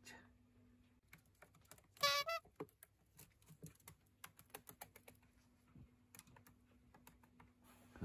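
Cockatiel's claws clicking and tapping irregularly on the hard plastic top of a kerosene fan heater as it steps about, with one short chirp about two seconds in.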